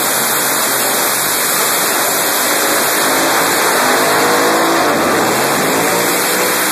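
Drag-racing engines running loud at high revs, with rising pitch sweeps about three to five seconds in as they accelerate.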